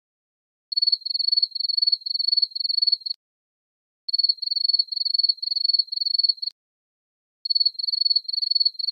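Cricket chirping sound effect: three runs of rapid, high, even chirps, each about two and a half seconds long, with dead silence between them.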